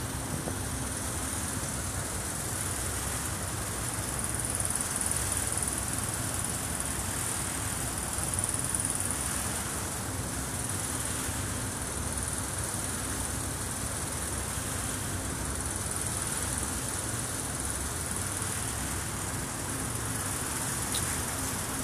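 Steady drone and rush of the Island Sky car ferry under way: engines running and the wake churning astern, with a constant high-pitched hiss over it.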